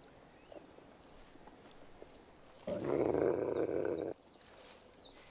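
A gray wolf snarls once, a harsh burst of about a second and a half starting a little before the middle: a warning over food while the pack feeds on a carcass. Faint bird chirps sound in the background.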